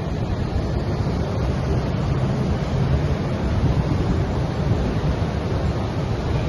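Steady rush of water churned up by a cruise ship's propeller wash as it pulls away from the quay, with wind buffeting the microphone.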